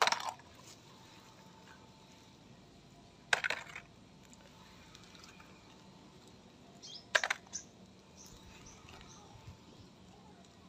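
Hard plastic toy vehicles clattering as they are dropped into a plastic basket: three short bursts of clicks and knocks, about three to four seconds apart.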